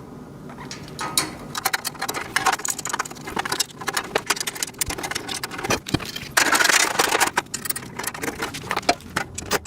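Hand assembly of a metal shelving rack: a run of quick clicks and knocks as hardware is fastened and metal parts are handled, with a longer scraping, rattling stretch about six and a half seconds in.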